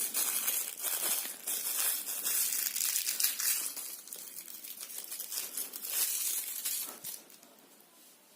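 Crinkling and rustling from handling small plastic wrapping, with many small clicks, as the battery is fitted into the microphone's battery compartment. It dies away about seven seconds in.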